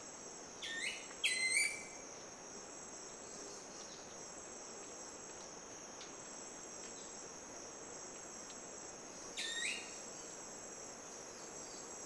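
Steady high-pitched drone of forest insects, with three short, loud bird calls: two about a second in and one near the end.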